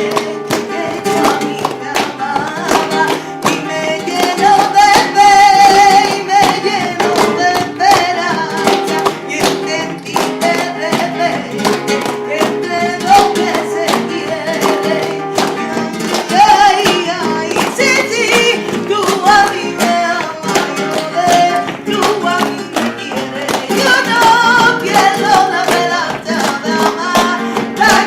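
Flamenco music: a wavering sung melody over acoustic guitar, with sharp percussive strokes all the way through.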